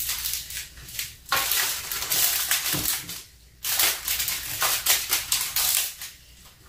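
Clear plastic cover sheet on a diamond painting canvas crinkling and rustling in irregular bursts as it is handled and smoothed to work out its creases.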